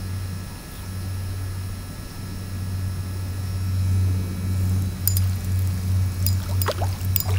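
Low, steady drone of a propeller aircraft passing over, swelling to its loudest about four seconds in and then pulsing. A few light clicks from the fishing rod and reel come in the second half.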